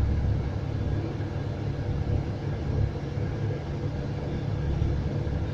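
Scania coach's engine and road noise heard inside the passenger cabin: a steady low rumble.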